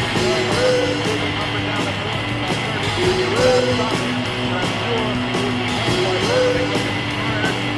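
Music with a short melodic phrase that repeats about every three seconds over a steady low drone.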